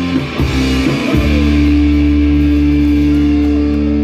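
Live rock band with electric guitars playing the closing bars of a song: a few chord changes, then one long chord held and left ringing from about a second in, with no vocals.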